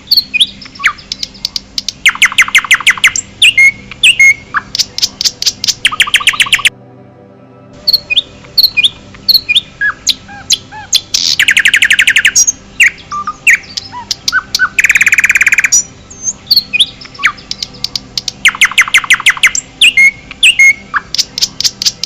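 Songbirds singing in a forest: loud, rapid trills of fast repeated notes every few seconds, with scattered short chirps and whistles between them.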